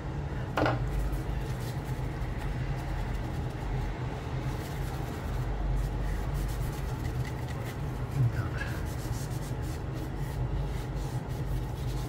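Hands rubbing and handling the plastic housing parts of a Nokta Makro Simplex+ metal detector during reassembly, with scattered light clicks and scrapes over a steady low hum.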